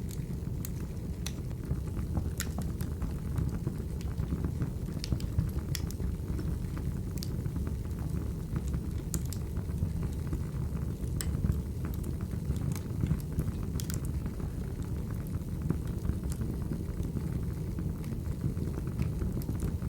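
Wood fire burning in a fireplace: a steady low rumble with sharp crackles and pops at irregular moments.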